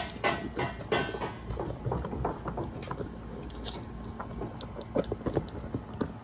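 Giant American Molossus dog lapping ice cream from a plastic bowl. Its wet laps come about three a second at first, then turn into softer, irregular licking and smacking.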